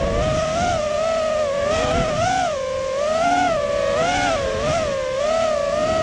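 FPV racing quadcopter's electric motors whining, the pitch swinging up and down every half second or so with the throttle, over a low rush of air.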